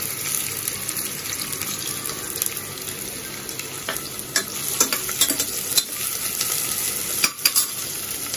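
Sliced onions sizzling steadily in hot oil in an open stainless steel pressure cooker. From about halfway through, a metal ladle stirs them, clicking and scraping against the pot a number of times.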